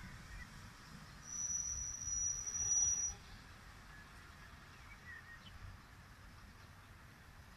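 A Eurocopter EC135 rescue helicopter on the ground with its rotor turning, giving a low, even rumble. About a second in, a steady high-pitched tone sounds for about two seconds and cuts off sharply. It is the loudest sound here.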